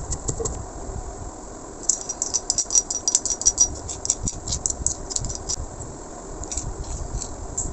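Dry-roasted spice seeds being pounded and ground with a stone pestle in a stone mortar: quick rattling, crackling clicks, dense for a few seconds in the middle and thinning out near the end.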